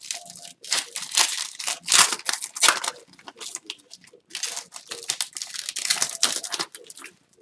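Plastic wrapper of a hockey card pack being torn open and crinkled in repeated irregular rustles, with a brief softer pause midway.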